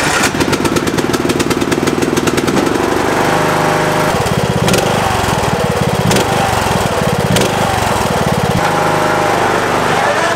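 Riding lawn tractor's engine firing up on the key and running steadily through its factory muffler, a rapid even beat of firing pulses.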